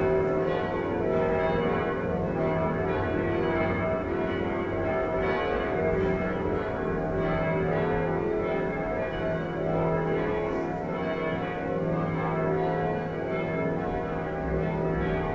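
Church tower bells ringing a festive peal (campane a festa), several bells struck in quick, overlapping succession so that their tones run together continuously.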